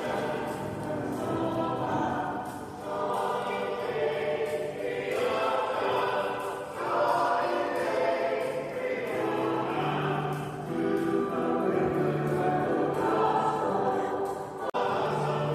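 Choir singing in long held chords, at a steady level, breaking off for an instant near the end.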